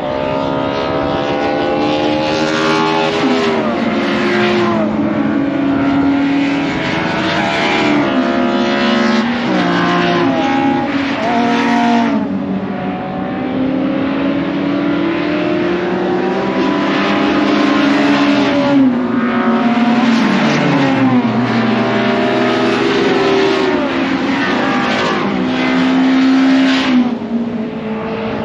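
Several classic touring car racing engines running hard at once, their notes overlapping. Each climbs in pitch and then drops back sharply, again and again, with gear changes.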